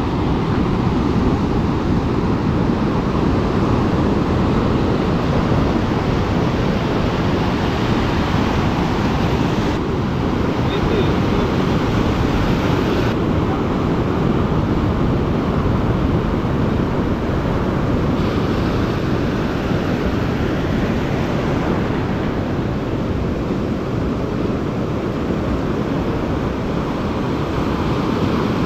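Steady rushing noise of wind buffeting the microphone, with surf washing on the beach underneath. It changes abruptly a few times, about ten, thirteen and eighteen seconds in.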